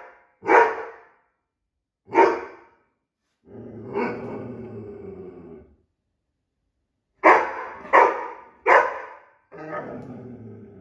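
Irish Setter barking: two single barks, then a drawn-out, lower-pitched vocalization lasting about two seconds. Then three barks in quick succession and another drawn-out, lower-pitched vocalization near the end.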